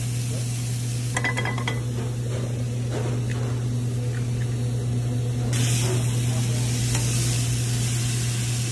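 Burger patty, bacon and a fried egg sizzling on a hot flat-top griddle and in a frying pan, over a steady low hum. A few metal utensil clicks come about a second in, and the sizzle grows louder about five and a half seconds in.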